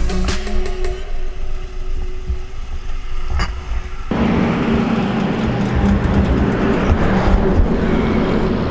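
Harley-Davidson Street Glide Special's V-twin running at low speed as the motorcycle rolls along the road shoulder. About four seconds in, a louder, denser rumble with road and wind noise takes over.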